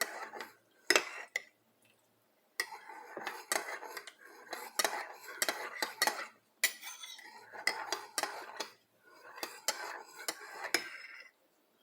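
A metal spoon stirring in a cup, clinking repeatedly against its sides in bursts, with short pauses.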